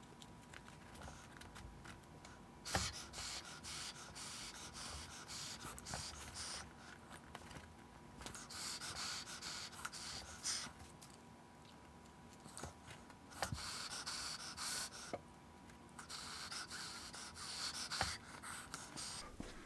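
Faint rubbing and scratching of fingers pressing and handling a foam puppet head along its contact-cemented seam, in short spells with a few light clicks.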